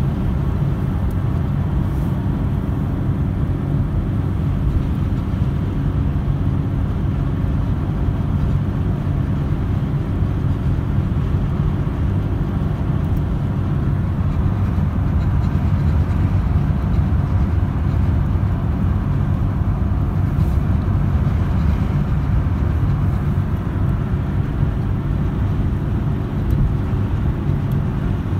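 Jaguar XJS cruising at steady highway speed, heard from inside the cabin: a constant low engine drone over road noise, with no change in pitch.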